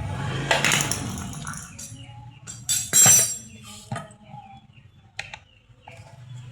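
A few separate clinks and knocks of hard parts being handled, the loudest about three seconds in, with quieter ones near four and five seconds.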